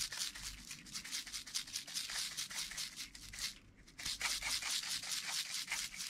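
Hands working barbecue salt over a raw duck: fast, even scratchy strokes, about six a second, with a brief pause about three and a half seconds in.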